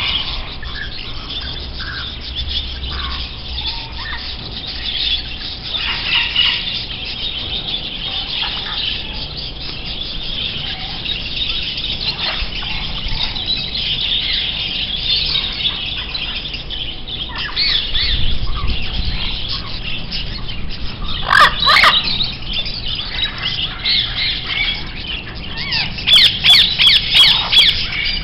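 Several birds chirping and squawking. A louder call about three-quarters of the way through, then a quick series of sharp calls near the end.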